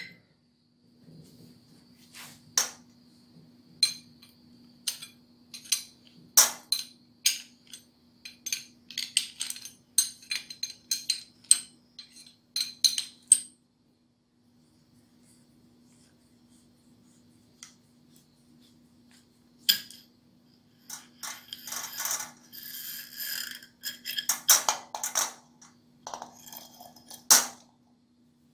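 Steel parts of a Honda CD front fork (tubes, springs, small fittings) clinking and clanking as they are handled and set down in a metal pan. A quick string of sharp knocks for about the first dozen seconds, a pause, then more clanks with scraping toward the end, over a faint steady low hum.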